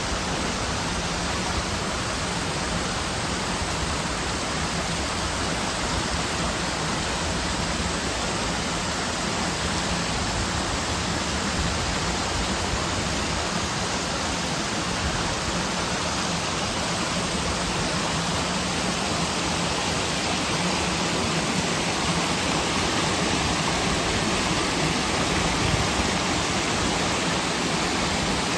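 Mountain valley stream rushing over rocks: a steady, unbroken rush of water.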